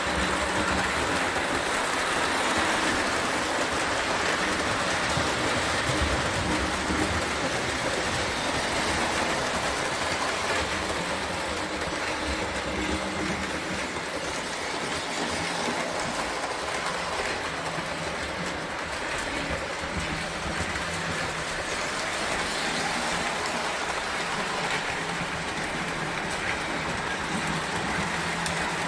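O gauge toy electric trains running on metal track: a steady rumble of motors and wheels that carries on unbroken.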